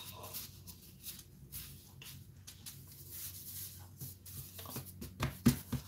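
Hands pressing and patting a slab of soft cookie dough into a rectangle: faint rubbing and soft pats, with a few sharper taps near the end.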